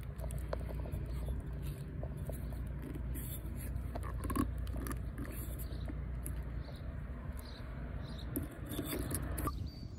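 Small clicks and scrapes of hands working a plastic headlight assembly and its bulb socket, over a low steady rumble.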